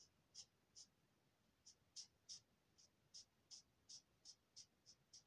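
Faint scratching of an alcohol marker's broad tip on paper, in short quick strokes about three a second, with a brief pause about a second in.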